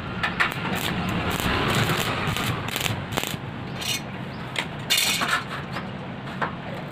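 Stick arc welding tacking the corner of a square steel-tube gate frame: a crackling, sizzling arc, most intense in the first half, mixed with sharp irregular metal clicks and clinks. A steady low hum runs underneath.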